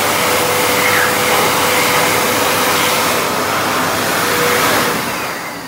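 Electric hand dryer blowing: a loud, steady rush of air with a faint steady whine, winding down near the end.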